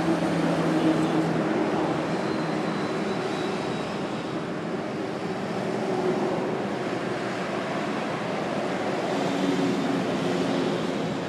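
Steady freeway traffic as cars pass close by: tyre noise and engine hum, with the hum of passing engines strongest near the start and again toward the end.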